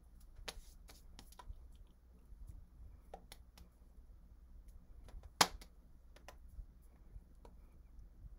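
Faint scattered clicks and soft taps of hands and fingers touching while signing, with one sharper snap-like tap about five seconds in, over a steady low hum.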